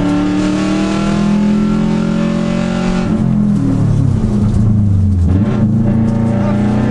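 Subaru Impreza rally car's 2.0-litre turbocharged flat-four engine running hard at racing speed, picked up by a microphone in the front grille. The engine note holds high for about three seconds, then drops and wavers lower, and climbs again near the end.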